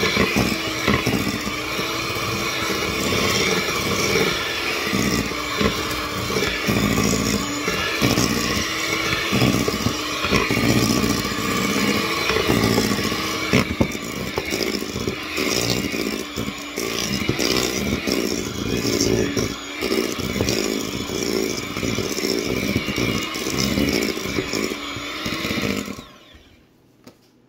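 Electric hand mixer running, its beaters churning cookie dough in a stainless steel bowl, with the motor's hum wavering in pitch as the dough loads it. It switches off near the end.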